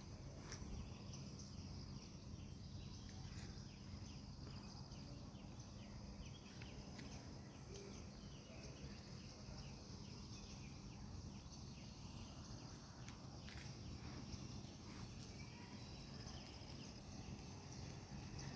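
Faint outdoor nature ambience: a steady high insect drone with many short chirps of insects or small birds over a low background rumble.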